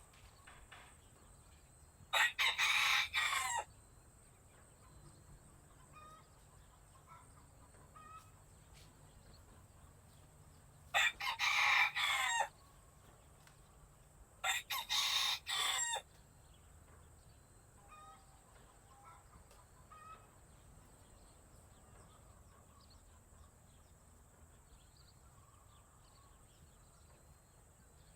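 A rooster crowing three times, each crow about a second and a half long, with faint clucks and chirps from chickens in between.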